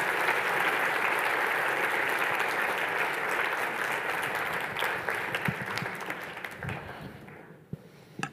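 Audience applauding, steady at first, then dying away from about five seconds in.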